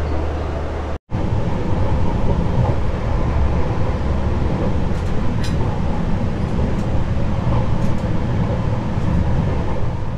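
Passenger train running along the track: a steady rumble of wheels on rails with faint clicks, broken by a brief gap about a second in.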